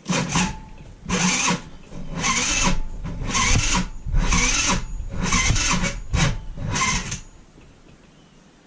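A scooter's engine being cranked over in about seven short strokes, roughly one a second, without catching; the cranking stops about seven seconds in. The owner says the starter is faulty and the battery flat.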